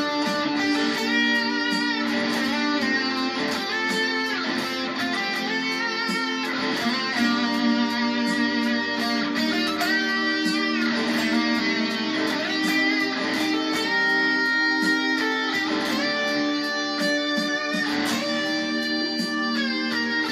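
Electric guitar, a Squier Stratocaster with a Benson pickup played through a Line 6 POD HD500X modeller, playing a slow lead melody of long held notes with vibrato.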